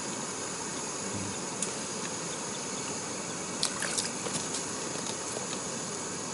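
A steady hiss, broken about halfway through by a few quick sharp taps as a roach is jerked out of the ice hole and lands on the ice.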